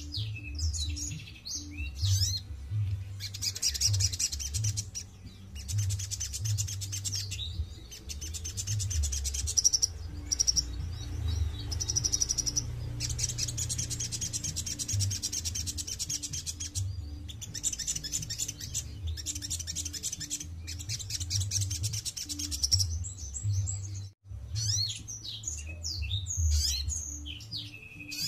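Male sunbird singing: long, high, rapid trills lasting a few seconds each, with sharp scattered chirps between them, over a low pulsing background.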